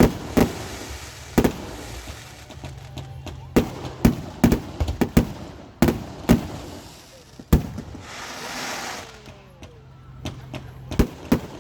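Aerial fireworks going off in an irregular series of sharp bangs, about a dozen in all. A hissing crackle lasts about a second near the end.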